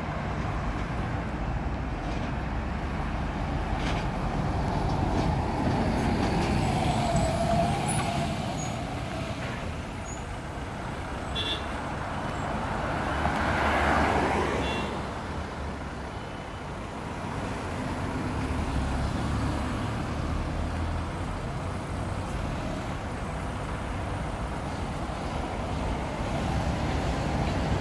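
Volvo single-deck bus engine running as the bus approaches, passes close and pulls into a stop, over a steady rumble of road traffic. The sound swells to its loudest about halfway through as the bus goes past, then settles back to a steady rumble.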